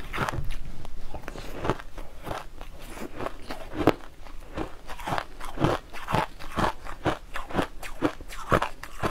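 Crushed ice being chewed close to the microphone: an irregular run of crisp crunches, a few a second, as a spoonful of coarse purple ice is bitten and broken up.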